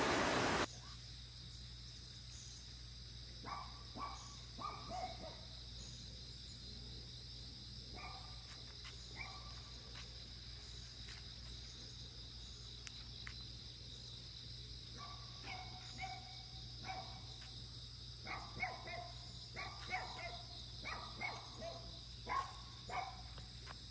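Dogs barking on and off in clusters over a steady high insect drone. A loud rushing noise cuts off under a second in.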